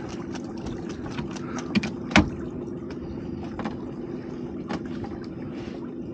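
Small boat's engine idling steadily, with scattered clicks and knocks as a crab pot is handled, the sharpest about two seconds in.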